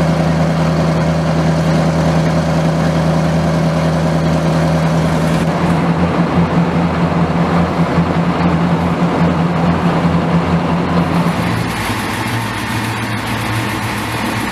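Diesel shunting locomotive engine running with a steady low hum. It turns uneven from about six seconds in, and shifts to a lower, different hum about twelve seconds in.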